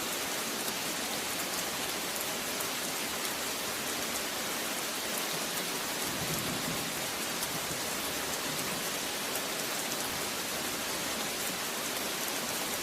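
Steady heavy rain falling on surfaces, a dense even hiss with fine individual drop ticks. A brief low rumble about halfway through.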